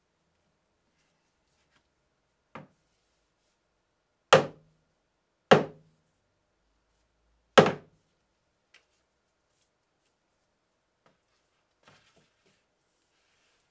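Sharp wooden knocks of a carob-wood mallet being struck down against the workbench board to seat its head on the handle: one lighter knock, then three loud ones a second or two apart, followed by a few faint taps.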